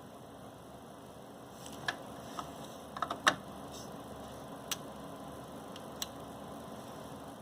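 Scattered light clicks and taps of computer hardware being handled, about half a dozen, with a small cluster partway through that holds the loudest click, over a steady low hum.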